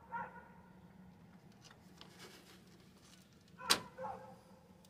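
A dog barking in short, spaced barks over a steady low hum, with one sharp click about three-quarters of the way through.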